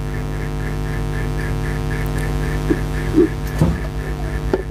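Steady electrical mains hum with a faint buzz pulsing about four times a second, and a few small clicks and taps in the second half as a charger module circuit board and its soldered wires are handled.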